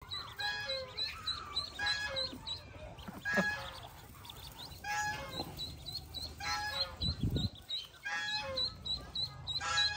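Pekin ducklings peeping in a continuous run of quick high cheeps, while the white Pekin hen gives a call about every second and a half. A brief low rumble comes a little past halfway.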